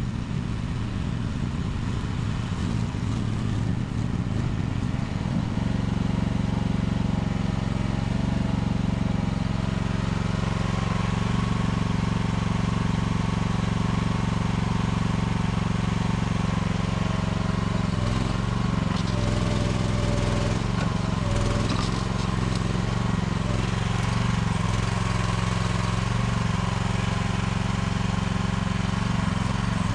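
Small mini excavator engine running steadily at working speed, its pitch shifting briefly as the hydraulics take load while it digs at a tree stump. The sound evens out into a steady hum about five seconds in.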